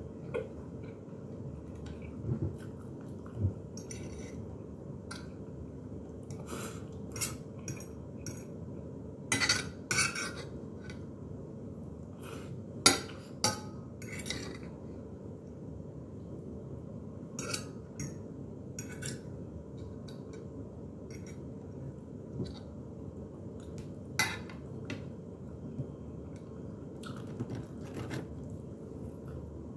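Cutlery clinking and scraping against a plate during a meal, in scattered short clicks, the loudest pair about halfway through, over a steady low background hum.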